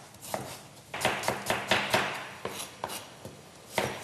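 Chef's knife slicing a bulb onion into half-rings on a wooden cutting board: a run of crisp, uneven cuts, each stroke knocking on the board, about two a second, with the strongest stroke near the end.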